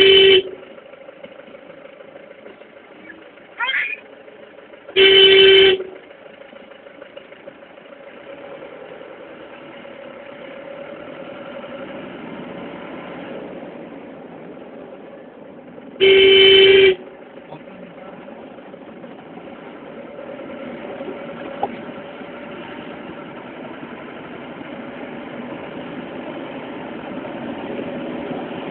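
Car horn honking in three blasts: a short toot at the start, then two longer ones of about a second each, about five and sixteen seconds in. Between them runs the steady hum of the vehicle's engine and road noise heard from inside the cabin, which grows louder near the end.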